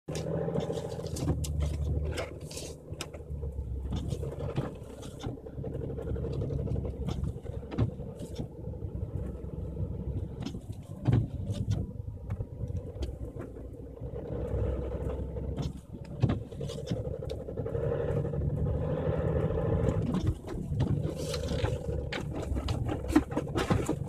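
BMW X5 xDrive35d's six-cylinder turbodiesel running under load, heard from inside the cabin as the SUV pushes uphill through deep snow. Frequent sharp crunches and knocks come from the tyres and body working through the snow.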